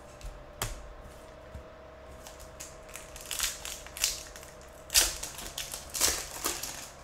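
A light click, then a foil trading-card pack wrapper crinkling and tearing as it is ripped open, in a run of crackly bursts in the second half.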